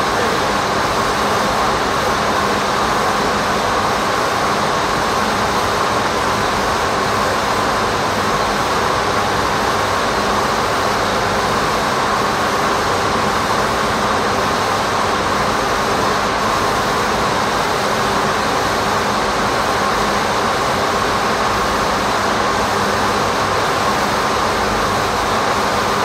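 Steady industrial noise of a conventional power station near its furnace: a dense, unbroken rush with a constant low hum and a held mid-pitched tone running through it.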